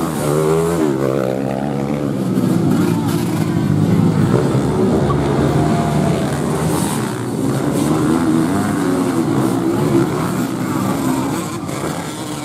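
Several motocross bike engines running hard on a dirt race track, their pitch rising and falling as riders open and close the throttle, with a rising rev in the first second.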